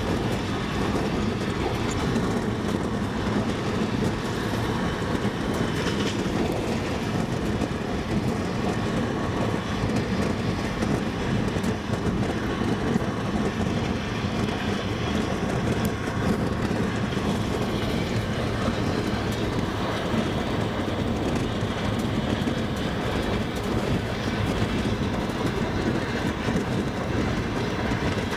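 Wheels of a moving double-decker passenger train clacking over the rail joints, with the steady running noise of the train.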